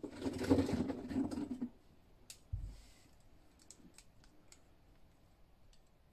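Small plastic toys being handled on a tiled tabletop: a rustling scrape for about a second and a half, a dull knock, then a few small, faint plastic clicks as a toy is turned over in the hands.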